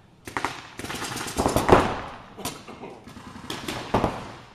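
Reball markers firing: a rapid string of shots in the first couple of seconds, then a few scattered single shots.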